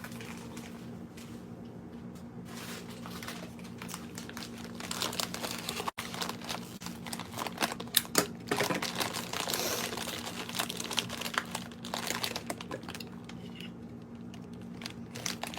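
Plastic snack bag of cheese puffs crinkling as it is handled, opened and closed, the crackling getting busier about five seconds in, over a steady low hum.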